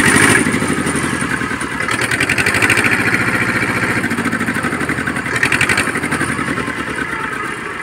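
TAFE 25 DI tractor's Simpson S217 two-cylinder diesel engine running steadily with a rapid even chug.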